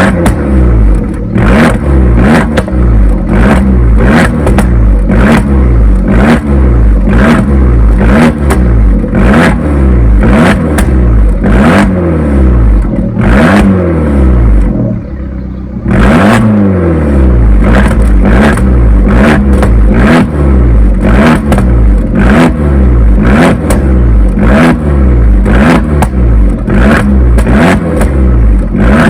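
Abarth 595 Pista's turbocharged 1.4-litre four-cylinder engine, breathing through a Record Monza exhaust, revved repeatedly in quick blips about once a second, with sharp pops and crackles from the exhaust. About halfway through it drops briefly back toward idle before the revving picks up again.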